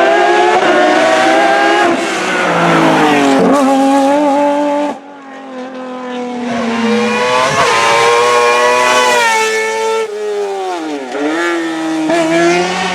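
Racing car engines at full throttle, revving high and dropping back through gear changes and lifts. The sound breaks off sharply about five seconds in, then another engine builds up again and dips briefly near eleven seconds.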